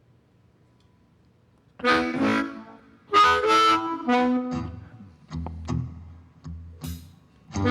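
A blues harmonica plays short riff phrases with brief gaps between them, after a couple of seconds of near silence. Low bass notes sound under the later phrases.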